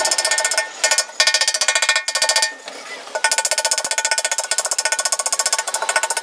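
Rapid metallic tapping on a steel motorcycle fuel tank, about ten ringing strikes a second, with a short pause about two and a half seconds in before the tapping resumes.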